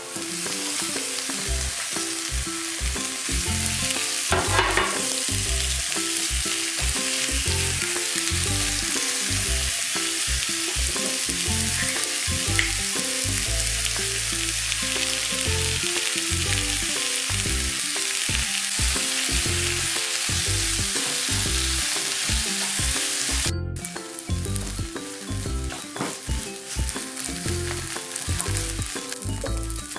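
Food sizzling in a frying pan, a steady loud hiss that drops out for an instant about three-quarters of the way through. A low background music line runs underneath.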